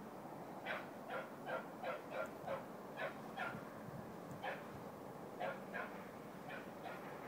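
A dog barking in a run of about a dozen short, high yelps, quick and close together at first and then more spaced out: a young dog giving tongue while trailing a rabbit through the brush.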